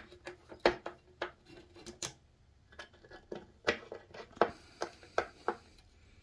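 Screwdriver tightening the connector screws that join two aluminium tracksaw guide rails: a string of irregular sharp metal clicks and ticks as the tool turns and knocks against the rail.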